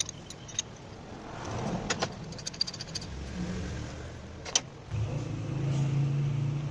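Light metallic clicks and clinks, scattered and irregular, over a low rumble; a steadier low hum comes in about five seconds in.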